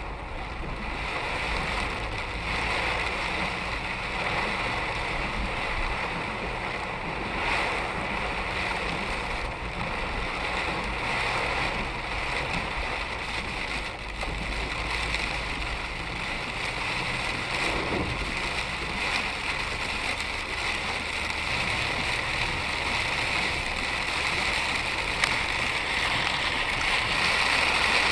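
Steady road noise from inside a car driving through a heavy storm: tyres hissing on a wet road and rain, over the engine's low hum, with a few faint knocks.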